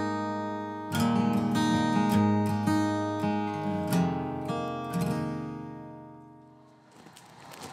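Background music: an acoustic guitar strummed, a new chord about every second, fading out about a second before the end, when a steady hiss of outdoor noise comes up.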